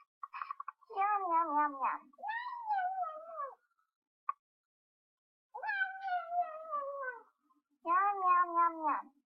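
Domestic cat meowing: four long, drawn-out meows, each sliding down in pitch at the end, two of them wavering.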